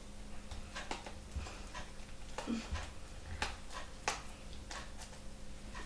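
Scattered short clicks and crinkles of hands picking and tearing at the tape on a parcel, at uneven intervals.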